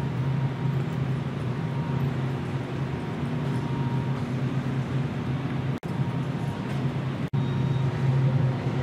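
Steady low mechanical hum, with two very brief dropouts in the sound about six and seven seconds in.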